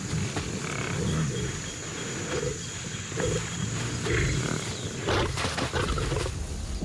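Lions growling during mating: a run of low, uneven growls, with a few sharp clicks about five seconds in.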